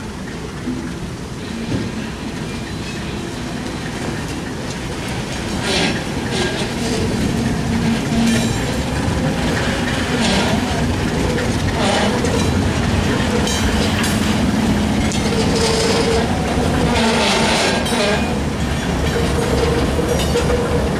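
Slow freight train of flatcars loaded with wooden sleepers rolling past, its wheels clacking over the rail joints every second or two, with the steady running of the diesel locomotive underneath. It grows louder as the cars come close.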